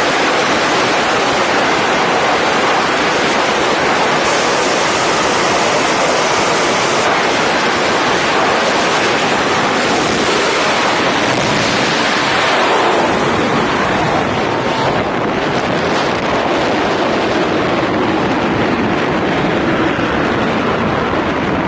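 Loud, steady jet engine noise from an F-35C's single F135 turbofan on a carrier flight deck. About twelve seconds in, the high hiss sweeps down and falls away, leaving lower, somewhat quieter engine noise as the jet draws off.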